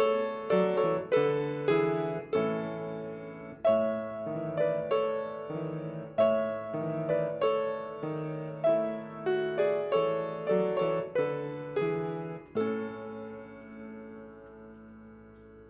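Piano playing a piece of struck chords and melody notes, ending on a final chord about thirteen seconds in that is left to fade away.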